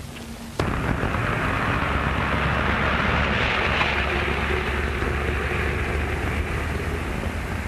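Street traffic: car engines running and traffic noise, cutting in abruptly about half a second in and swelling a little toward the middle.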